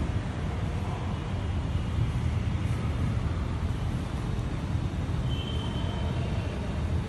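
Steady low background rumble of road traffic and station ambience, with a brief faint high tone a little past five seconds in.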